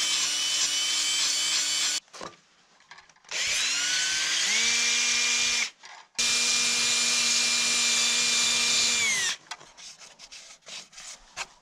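Ridgid 18V cordless drill spinning a sanding disc against a log wall. It runs, stops about two seconds in, then spins up again with a rising whine. It cuts out briefly near six seconds, runs again and winds down near nine seconds, followed by a few light taps.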